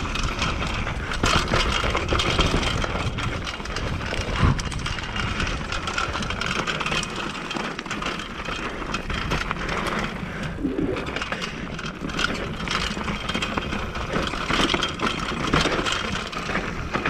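Mountain bike rolling fast over rough, rocky, dry trail: steady tyre rumble with a constant rattle of small knocks and clicks from the bike over the chunky ground.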